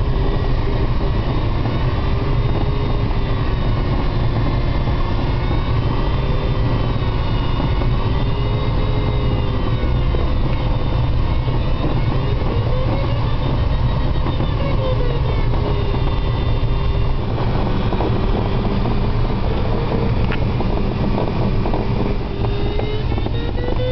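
Steady rush of airflow around a DG500 sailplane's cockpit in fast ridge-soaring flight. Under it, an audio variometer's continuous tone slowly wavers up and down in pitch, following the glider's climb and sink.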